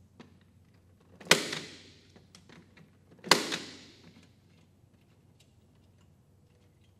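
Impact punch-down tool with a 66 blade snapping twice, about two seconds apart, seating and trimming wires in the clips of a 66 punch-down block. Each is a sharp crack that dies away in under a second, with light clicks of wire handling in between.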